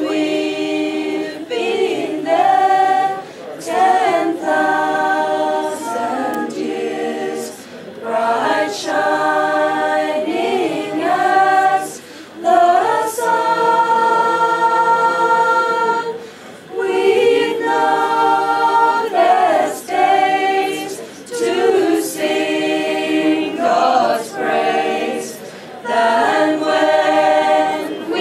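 A small group of voices singing together without instruments: phrases with long held notes, separated by short breaths.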